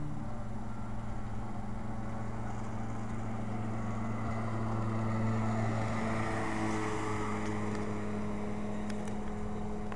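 Pontoon boat motor running steadily under way, with a steady hum over a wash of water and wind noise. Its pitch shifts slightly about two-thirds of the way through.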